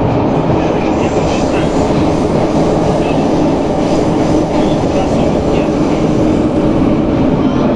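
Moscow metro 81-717/714 train running at speed through a tunnel: a steady, loud rumble of wheels on rail with a faint motor hum.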